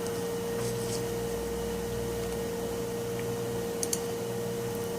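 Quiet room tone: a steady hum over a soft hiss, with a couple of faint clicks, one near the start and one about four seconds in.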